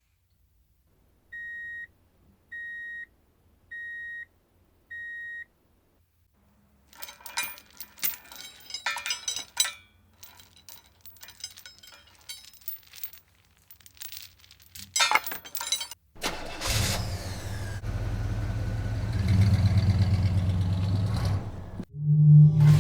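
Four evenly spaced electronic beeps, then a run of clicking and rattling, then a car engine starting and running with a steady low rumble for about six seconds.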